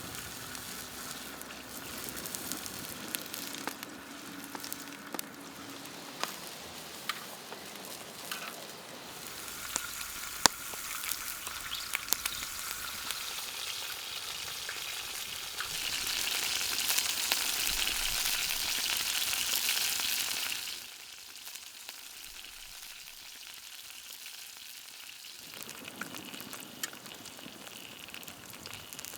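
Sausages frying in a wok: a steady sizzle with scattered pops and spits of hot fat. The sizzle swells louder for several seconds past the middle, then drops back abruptly.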